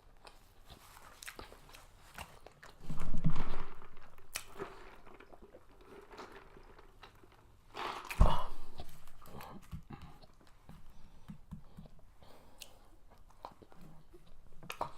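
Close-miked eating mouth sounds: chewing with small crunchy clicks, and two louder mouth sounds about three and eight seconds in that fade over a second or two.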